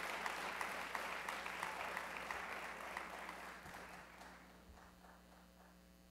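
Audience applause at the end of a dance routine, dense clapping that fades away over about four seconds.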